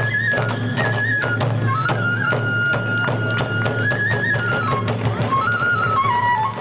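Kagura hayashi ensemble: a bamboo transverse flute plays a melody of held, stepping notes over rapid drum and small hand-cymbal strokes.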